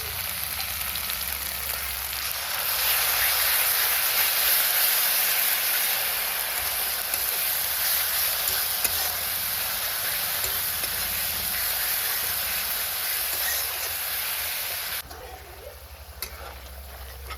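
Food frying in hot oil in a pan, a steady sizzle that grows louder about three seconds in and cuts off abruptly near the end, followed by a few faint clinks.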